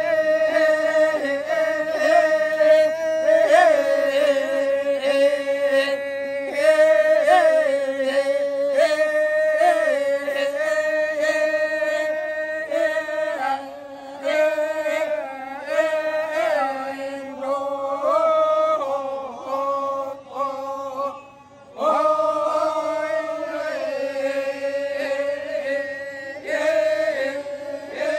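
Badong, the Toraja funeral chant: a group of voices chanting together in long held notes that slide slowly up and down, with a short break about three-quarters of the way through.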